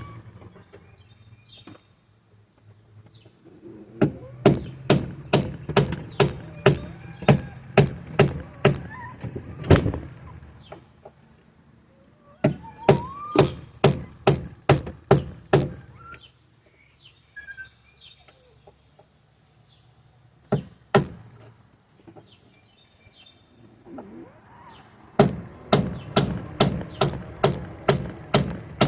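Runs of sharp hammer blows, about two a second, broken by pauses: a sledgehammer striking a flat-head screwdriver to drive the old door hinge bushings out of a Jeep Wrangler TJ's door hinges.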